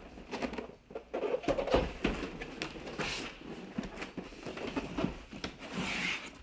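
Long cardboard rifle box being handled and opened: irregular taps, knocks and scraping of cardboard, ending in a hissing rub as the lid is pulled up.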